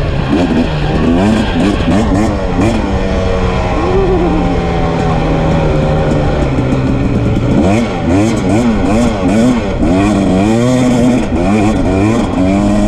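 Dirt bike engine heard from on board, revving up and dropping back repeatedly as the throttle is worked. It holds steadier for a few seconds in the middle, then runs through a quick series of rises and falls near the end.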